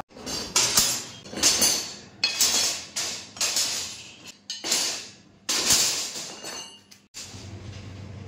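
Curved metal grill strips clanking against the bars of a window-grill frame as they are laid in place: a series of sharp metallic hits, each ringing briefly.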